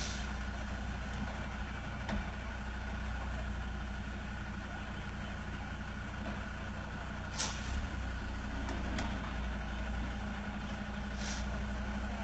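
Heavy tanker truck's diesel engine running slowly at low revs as the truck inches around a tight bend, a steady low rumble. Two short hisses of air cut in, about halfway through and near the end.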